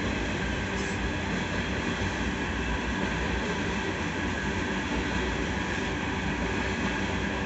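Loaded coal train's hopper cars rolling past: the steady noise of steel wheels running on the rails, heard from inside a car.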